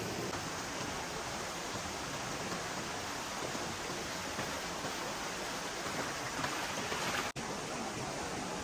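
Steady rushing noise of running water, broken by a split-second dropout near the end.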